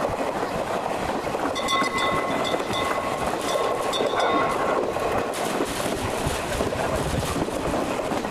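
Train running steadily along the track, a continuous rumble of wheels and running gear. About a second and a half in, a pulsing level-crossing warning bell rings for a few seconds as the train passes a crossing.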